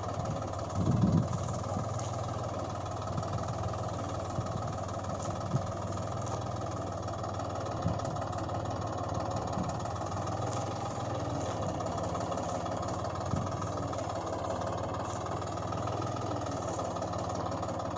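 Tractor engine running steadily at idle, with a few brief knocks now and then.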